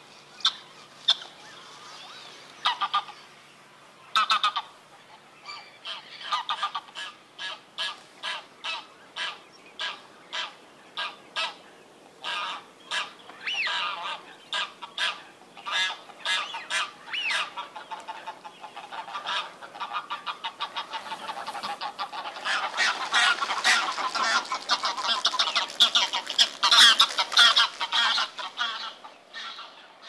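Domestic geese honking: a run of short single honks about two a second, building in the last third into a dense chorus of many overlapping calls.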